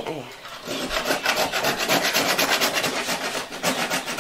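A piece of ram's horn being grated on the finest side of a metal box grater into powder, a dry rasping in quick, even strokes at about five a second, starting about half a second in.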